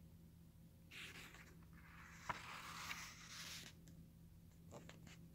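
A book page being turned by hand: a soft paper rustle starting about a second in and lasting a couple of seconds, with a small tap partway through.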